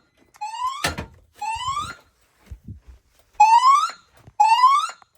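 Fire alarm voice-evacuation speakers sounding a whoop alarm tone between announcements: short rising whoops, two pairs with a pause between them. A sharp knock sounds about a second in.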